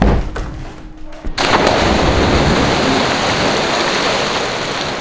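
A person jumping into a swimming pool: a footfall thud at the start, then about 1.4 s in a sudden loud splash that turns into a steady rush of churning water, slowly fading.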